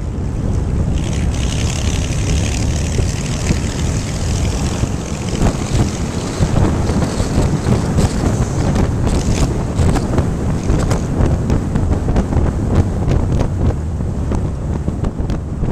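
Wind buffeting the microphone of a vehicle driving at highway speed, over a steady low road and engine rumble.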